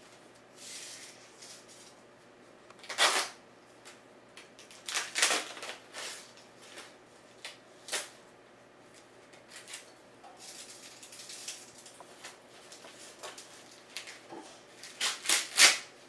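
Green husks being torn and stripped off ears of fresh sweet corn by hand: crackling rips in short bursts, with softer rustling of leaves between, and a quick run of several rips near the end.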